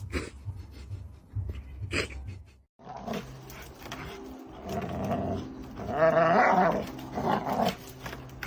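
A dog vocalising with growls, loudest about six seconds in, where the sound wavers in pitch. Before that, a few knocks and clicks up to a sudden cut about three seconds in.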